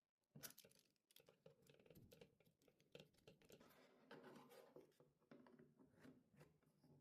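Faint, irregular clicking and scratching, starting about a third of a second in.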